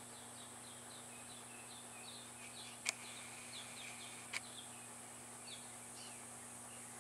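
Faint, repeated bird chirps over a steady hum and hiss, with two sharp clicks about a second and a half apart near the middle.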